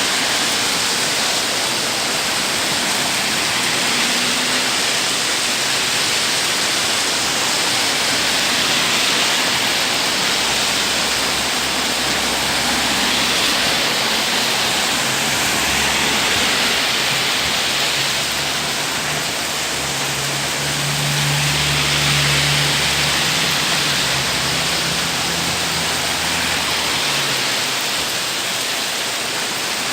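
Heavy rain pouring down in a steady downpour. A low hum comes in about a third of the way through and fades out near the end.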